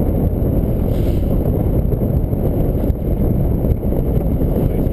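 Wind buffeting the camera's microphone, a steady low rumble with no let-up.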